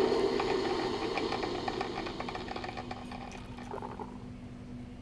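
A mechanical whirring hum with faint rattling that fades away over the first few seconds. A steady low hum holds from about two seconds in.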